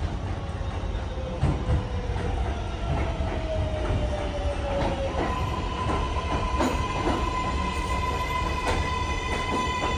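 R188 subway train pulling into the station and slowing, over a steady rumble of wheels on rail. Its propulsion whine falls in pitch, then about five seconds in it settles into a steady high tone with several overtones, while a few sharp clacks come from the wheels.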